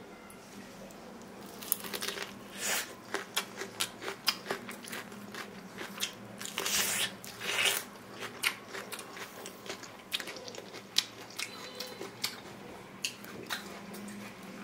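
Crisp crunching and crackling from grilled corn on the cob in its husk: a run of sharp clicks and short crunches, with a few longer crunches around the middle.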